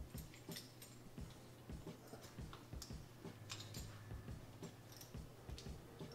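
Faint, scattered small clicks and taps of hands and a 2 mm Allen key working on a metal equatorial telescope mount while a grub screw is loosened, over a steady low hum.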